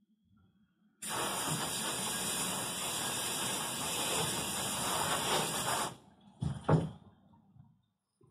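Spray nozzle in a blast cabinet hissing steadily for about five seconds over the wheel, starting and cutting off abruptly. It is followed by two sharp knocks as the wheel is handled.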